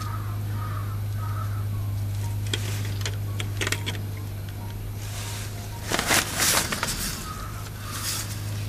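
Clicks and clatters of a differential cover and its reusable gasket being handled, over a steady low hum. The loudest cluster of clatters comes about six seconds in, and there are a few faint bird calls near the start.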